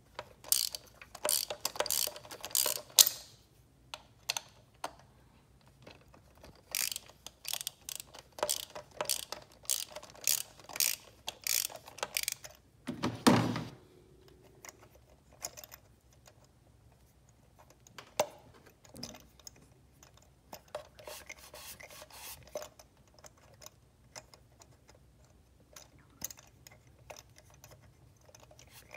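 A ratchet wrench clicking in runs of quick strokes as spark plugs are worked in or out, with pauses between the runs. One heavier, lower sound comes about halfway through, and the clicking is fainter near the end.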